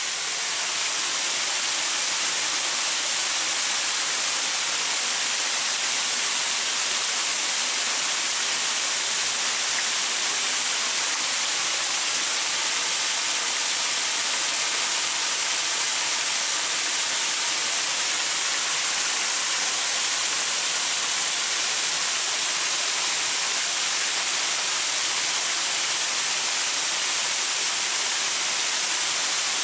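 Waterfall tumbling over rocks: a steady, even hiss of falling water, bright and with little low rumble.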